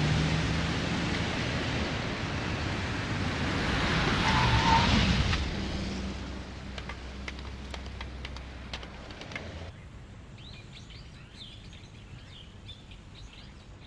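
Road traffic noise from a passing vehicle that swells about four seconds in and then fades, followed by a run of faint clicks. About ten seconds in the sound changes abruptly to birds chirping.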